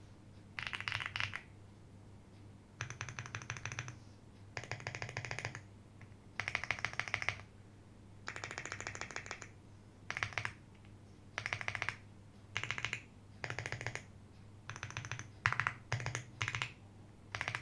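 Slow typing on a plateless, foam-filled JRIS65 mechanical keyboard with Akko Cream Blue Pro V3 clicky switches and doubleshot ABS keycaps. Short runs of rapid, clicky keystrokes come about once a word, with pauses of around a second between them.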